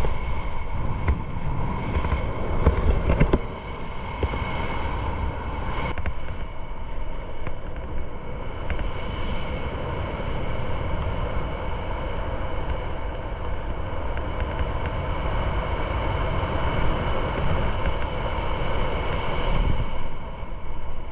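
Air rushing over the microphone of a helmet camera during parachute canopy flight. There is heavy buffeting for the first three seconds or so, then a steadier rush until the landing.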